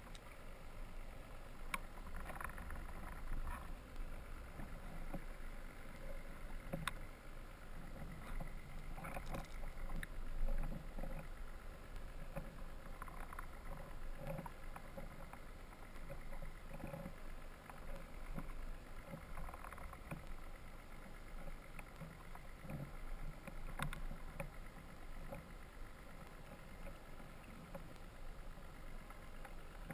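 Muffled underwater sound picked up through a camera's waterproof housing: a steady low rumble with a faint hum, broken by a few sharp clicks and soft irregular thuds.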